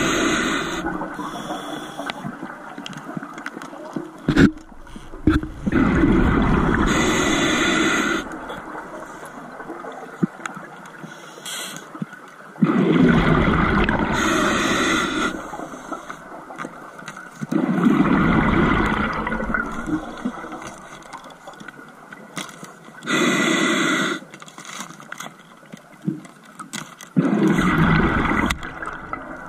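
Scuba diver breathing through a regulator underwater: about five exhalations, each a gush of bubbles lasting a couple of seconds and coming every four to five seconds, with quieter regulator hiss on the inhales between them.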